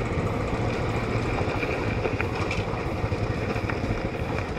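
Royal Enfield Classic 500's single-cylinder engine running steadily, engine braking down a dirt-track descent, with a few light clicks.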